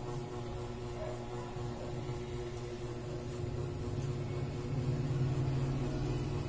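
A steady low mechanical hum, growing a little louder from about four seconds in and easing off near the end.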